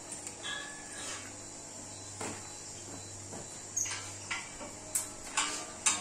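Scattered metal clinks and taps of a hand tool on the steel mast frame of a mechanical drilling rig during unbolting, with several louder sharp clanks in the last two seconds.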